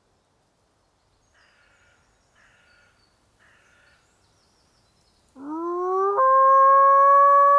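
A long howl begins about two seconds before the end, gliding up from a low note, breaking abruptly to a higher one and holding it steady and loud. Before it come three faint short calls, about a second apart.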